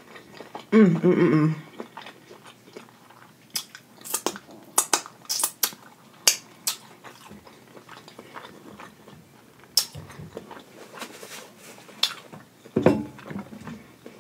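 Close-up mouth sounds of a person chewing food: wet clicks and lip smacks, with a loud short vocal sound about a second in and another one near the end.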